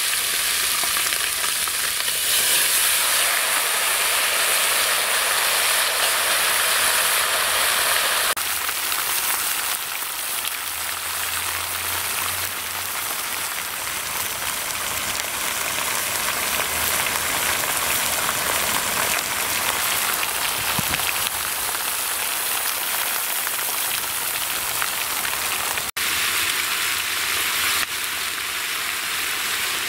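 Pieces of hen sizzling in hot oil in a large metal pot over a wood fire, a steady dense frying hiss as the meat sears and browns. It is the sizzle a cook wants to hear at this stage.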